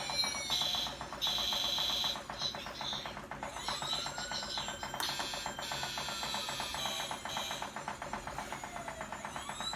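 Salvaged toy sound chip playing a tinny electronic tune through a small speaker, with a few slow sliding tones and bright beeping notes that switch on and off.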